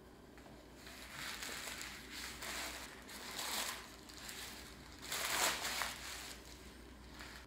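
Thin white wrapping tissue being pulled apart and crumpled by hands, crinkling in irregular bursts, the loudest about five and a half seconds in.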